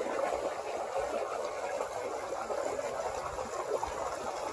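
Creek water running, a steady unbroken rush.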